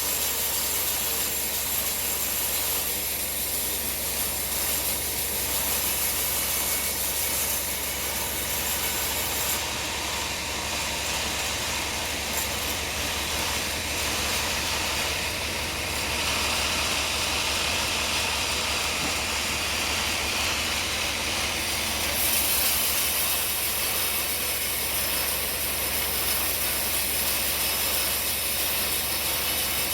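Sawmill machinery running steadily: the motor hum and blade noise of a log saw, with the high hiss of the cut dropping away about a third of the way in and coming back after about twelve seconds.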